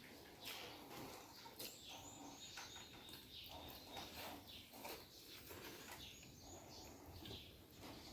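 Faint chewing and mouth sounds of someone eating, soft and irregular, with a few faint high chirps.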